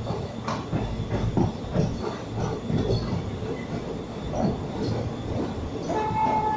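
Passenger train running: steady rumble and rattle of the carriage with irregular clatter from the wheels on the rails, and a brief high wheel squeal about six seconds in.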